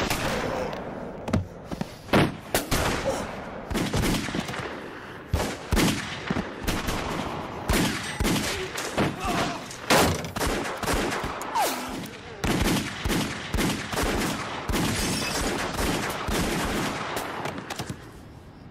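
Movie shootout soundtrack: many gunshots in rapid, irregular volleys, with some shouting between them. The firing stops about 18 seconds in.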